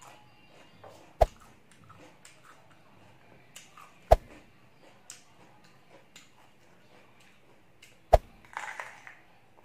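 Three loud, sharp crunches of teeth biting into a crisp raw green vegetable, a few seconds apart, with faint crackly chewing between them and a wetter chewing noise near the end.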